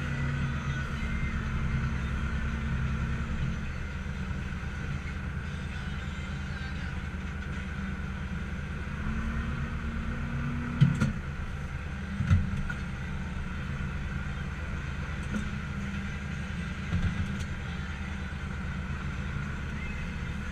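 Tractor engine running steadily under way while towing a livestock trailer, heard from inside the cab. A couple of short knocks come about halfway through.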